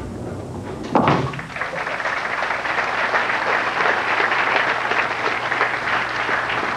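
A bowling ball crashes into the pins about a second in, and then the arena crowd applauds for the converted spare.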